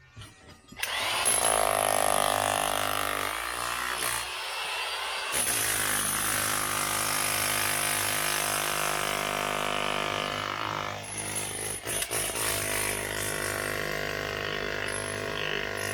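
Electric power tool drilling into stone, running steadily at a high, even speed, with a brief dip in its low hum about four seconds in and a shift around eleven seconds in.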